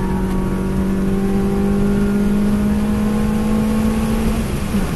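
2014 Suzuki Swift Sport's 1.6-litre four-cylinder, with aftermarket intake, headers and cat-back exhaust, heard from inside the cabin under hard acceleration, its note climbing slowly in pitch with tyre and road noise underneath. Near the end the note breaks off and drops as the driver changes up a gear.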